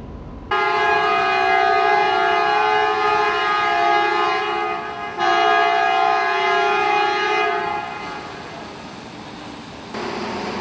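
Warning horn of an overhead gantry crane sounding two long steady blasts with a short break between them. A rush of machine noise starts near the end.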